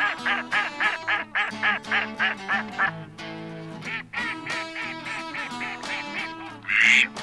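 Music with a rapid run of duck quacks over it, about three a second for the first three seconds. Sustained music notes carry on after that, and a loud harsh burst comes near the end.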